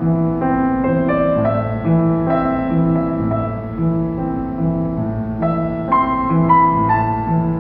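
A grand piano played solo: a repeating low accompaniment under a melody line, with a short falling phrase of higher notes about six seconds in.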